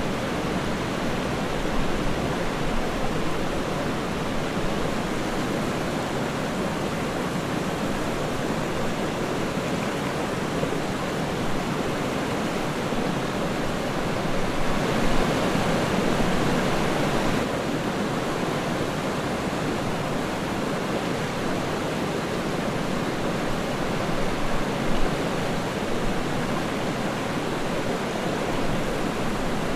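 Waterfall: water falling and splashing in a continuous rush, a little louder for a couple of seconds about halfway through.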